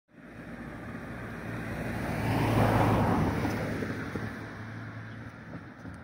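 A car passing by on a road: a rushing tyre and engine noise that grows to its loudest about halfway through, then fades away.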